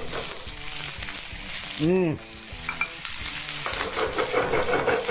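Sherry sizzling and crackling steadily in a very hot sauté pan as it is deglazed and flambéed, the alcohol burning off.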